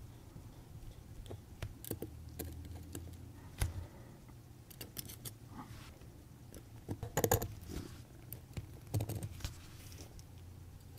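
Faint, scattered small metallic clicks and clinks of a watchmaker's steel screwdriver and tweezers against a pocket watch movement as the crown wheel screw is taken out, with a few louder clusters of clinks.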